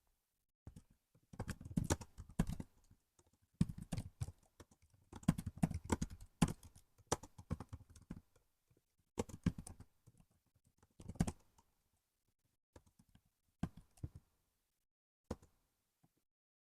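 Typing on a laptop keyboard: quick irregular bursts of keystrokes with short pauses between them, thinning out to a few scattered taps in the second half.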